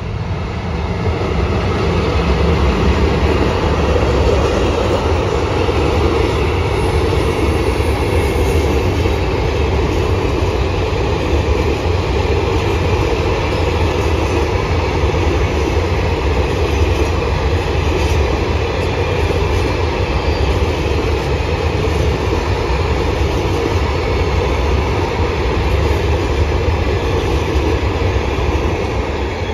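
A freight train passes close by: two electric locomotives, then a long rake of covered hopper wagons. Their wheels make a steady rolling rumble on the rails that keeps on throughout the passage.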